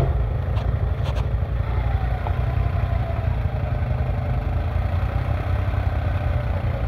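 Suzuki KingQuad 750 ATV's single-cylinder four-stroke engine running at a steady low rumble while the quad sits stuck in deep mud, with a couple of light clicks about a second in.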